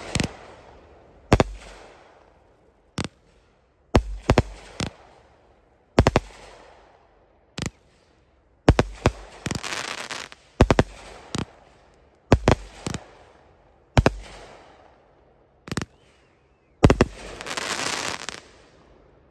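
Multi-shot consumer fireworks cake firing shot after shot, about a second apart and sometimes in quick pairs. Each shot is a sharp report that fades into a fizzling crackle, and two longer spells of dense crackling come midway and near the end.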